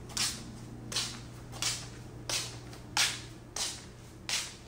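Footsteps scuffing on a floor at walking pace, about one step every two-thirds of a second, over a faint steady low hum.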